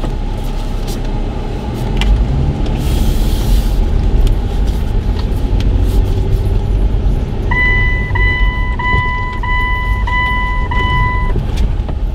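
Jeep Wrangler JK's engine and road rumble heard from inside the cabin as the car pulls away slowly, the rumble growing louder about two seconds in. Past the middle, a dashboard warning chime beeps six times in an even series, about one and a half beeps a second, each a clear steady tone.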